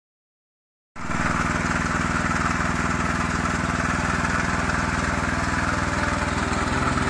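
Petrol engine of a STIHL MH 700 power tiller running steadily, cutting in abruptly about a second in after silence.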